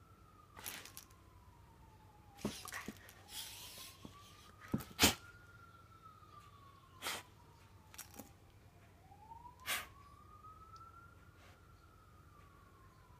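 A faint siren wails slowly up and down, one rise and fall every five to six seconds. Over it come several sharp taps of a border collie puppy's paw smacking at a bug on the carpet, the loudest about five seconds in, with a short rustle just before.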